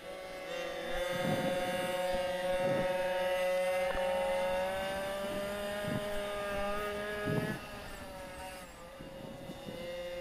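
Water-cooled 40 cc two-stroke minibike engine running at high revs under racing load. Its high, steady pitch climbs slowly for several seconds, falls away briefly about three-quarters of the way through as the throttle eases, then climbs again, with a few short thumps along the way.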